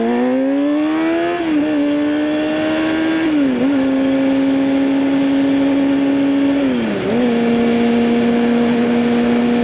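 2009 Kawasaki ZX6R's inline-four sportbike engine through a Hotbodies MGP Growler slip-on exhaust, pulling up through the gears: the note climbs, drops briefly with an upshift about one and a half seconds in, again after three and a half seconds and again about seven seconds in, then holds a steady cruising note.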